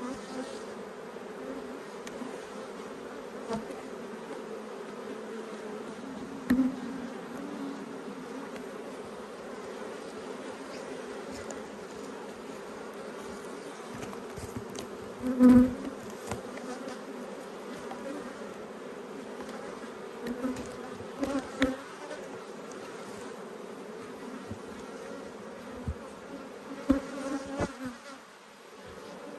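Honeybees buzzing around a hive: a steady hum from the colony, with single bees flying close past the microphone several times in louder passes, the loudest about halfway through.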